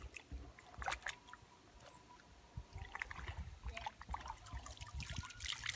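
Shallow river water splashing and sloshing as a person wades and works his hands in it. Short irregular splashes come more often toward the end.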